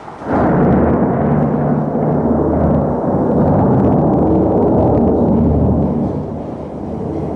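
Thunder from a nearby lightning strike: a sudden loud crack about a third of a second in, followed by deep rumbling that holds for several seconds and eases near the end.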